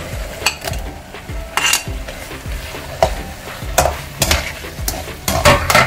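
A spoon and spatula scraping and knocking against a plate and a metal kadai as sliced mushrooms are pushed into a tomato masala and stirred, over a low sizzle from the pan. The sharp scrapes and clicks come about half a dozen times, the busiest near the end.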